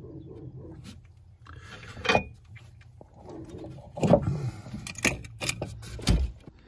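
Scattered clicks, knocks and light rattles of things being handled, one sharp knock about two seconds in and a dense run of them in the second half, ending with a low thump.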